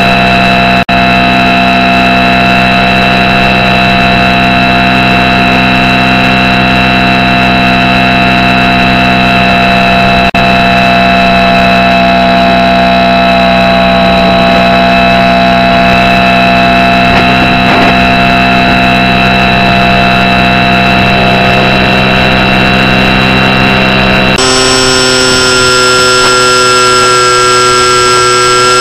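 Motor of a radio-controlled model aircraft heard from its onboard camera: a loud, steady drone with a whine held at one pitch, cutting out for an instant twice. About 24 seconds in it jumps suddenly to a different, higher, buzzier tone.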